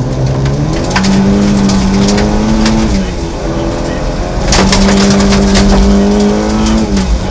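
Triumph rally car's engine pulling hard away from a stage start on gravel, revving high and dropping at gear changes about three seconds and seven seconds in. Sharp ticks of gravel and stones strike the car throughout.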